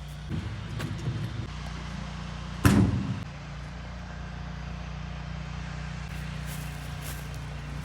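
Steady low mechanical hum, with one sharp, loud bang nearly three seconds in.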